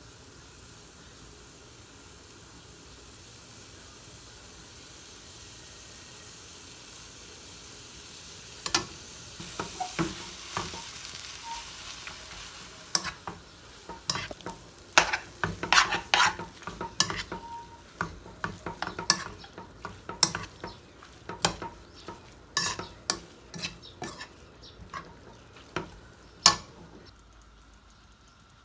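Food sizzling in a hot pan. From about nine seconds in, a cooking utensil stirs the food and repeatedly knocks and scrapes against the pan.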